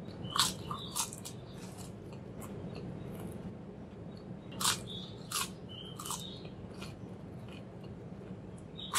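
Crisp potato chips being bitten and chewed, in two bouts of sharp crunches: one near the start and another from about halfway through. A faint steady low hum sits underneath.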